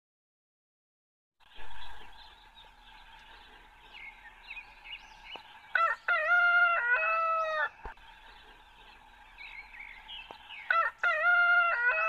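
A rooster crowing twice, about five seconds apart, over faint chirping of small birds.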